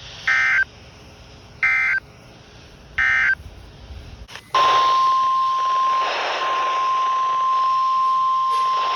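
Emergency Alert System end-of-message: three short bursts of SAME data tones about a second and a half apart, marking the end of one warning. About four and a half seconds in, the steady single-pitch weather radio warning alarm tone starts over radio hiss, announcing the next warning.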